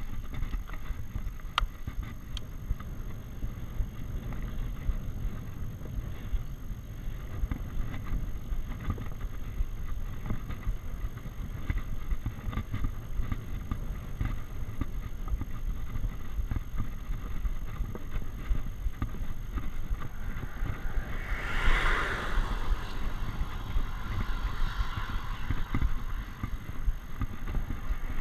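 Steady low rumble of road and wind noise picked up by a bicycle-mounted action camera on a road climb, with a faint steady high whine. About three-quarters of the way through, a louder rushing sound swells and fades over a couple of seconds.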